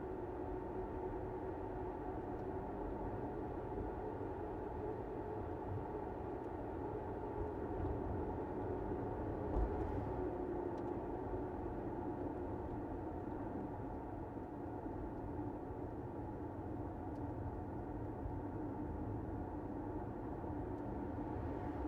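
Car driving at a steady speed: continuous road and tyre noise with a faint steady hum, and one brief knock about ten seconds in.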